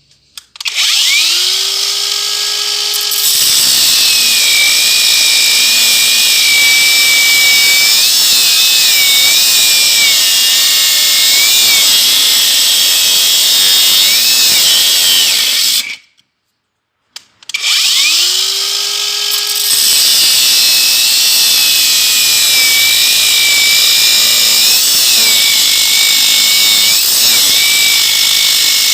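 Parkside Performance PWSAP 20-Li C3 cordless angle grinder spinning up with a rising whine, then running loud and noisy with a wavering high whine as the disc works the material. It stops for about a second, spins up again, and goes back to work on the material.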